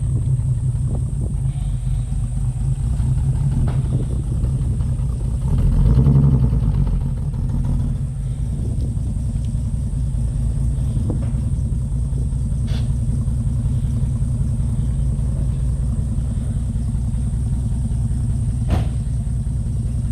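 Holden VK Commodore's 202 inline-six running with an even low rumble, swelling briefly about six seconds in. It runs lumpy, which the owners put down to it not firing on all six cylinders after years of sitting. A sharp click sounds near the end.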